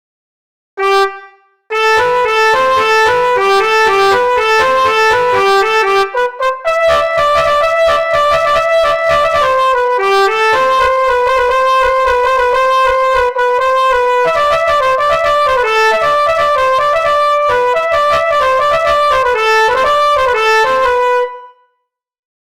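Telolet bus horn tune recreated in FL Studio: a horn-like melody of quick stepping notes, sometimes several pitches at once. A short single note sounds about a second in, then the tune runs from about two seconds and stops abruptly near the end.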